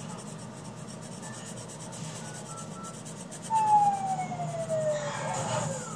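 Coloured pencil rubbing on paper. About three and a half seconds in, a loud siren-like tone glides steadily down in pitch for about two seconds.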